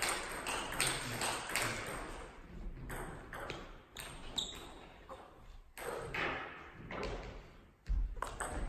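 Celluloid-style table tennis balls clicking and pinging off the table and paddles between points, in short sharp taps with a brief ringing ping about halfway through, then a louder thump as a serve is played near the end.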